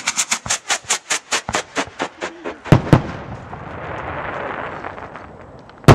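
Fireworks rocket launch: a rapid run of sharp pops, about eight a second and slowing over the first two and a half seconds, then two loud bangs close together, a hiss, and another loud bang at the end.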